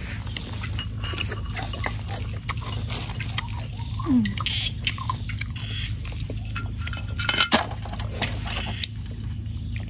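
Close-up eating sounds: crunching and chewing of food, heard as many short crisp clicks, with a louder cluster of crunches about three-quarters of the way through and a brief hummed vocal sound about four seconds in. A steady low hum runs underneath.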